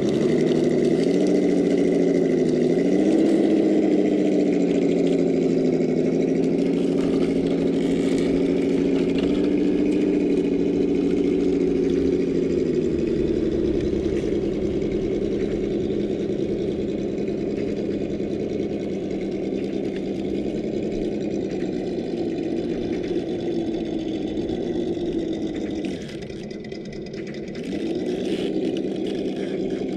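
Traxxas TRX-4 Defender RC crawler driving over boulders: a steady engine-like hum whose pitch dips and rises with the throttle, falling away briefly near the end.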